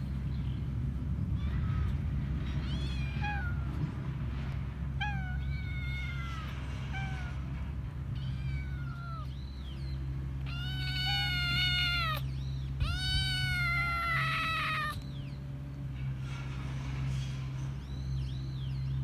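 Young calico stray kitten meowing over and over, crying with hunger. There is a call every second or so, and the two longest and loudest cries come about halfway through.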